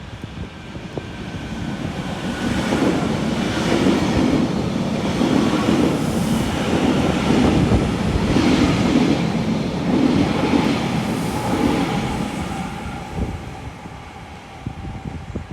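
A train running past on the station track, its wheels clattering over the rail joints in a regular rhythm. The sound builds over the first few seconds, holds, and then fades near the end.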